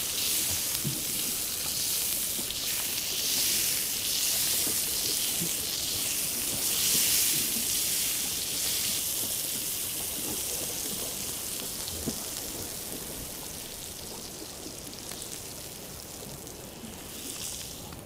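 Hot butter sauce sizzling on freshly sliced steak: a steady, crackling hiss that slowly dies away.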